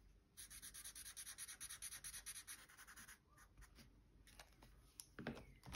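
Pen scribbling on paper in quick back-and-forth strokes for about three seconds, followed by a few soft paper-handling rustles near the end.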